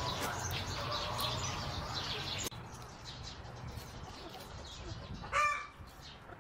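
Birds chirping over a low rumble, which drops away suddenly about two and a half seconds in. About five seconds in comes one short, loud, pitched bird call, the loudest sound.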